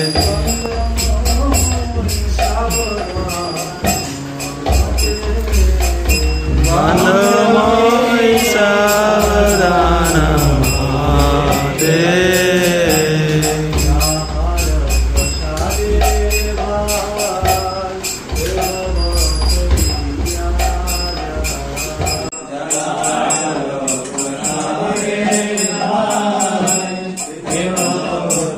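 Devotional kirtan: voices singing a chant, with small hand cymbals keeping a steady beat. A low accompaniment under the singing drops away about 22 seconds in.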